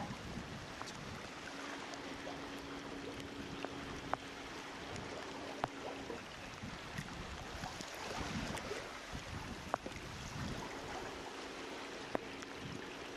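Water rushing and lapping along a sailboat's hull under way in light wind, with scattered small knocks. A faint steady hum comes in twice.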